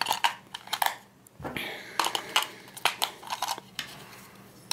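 AA batteries being fitted into the plastic battery compartment of a toy remote control: a scatter of small, sharp plastic clicks and taps.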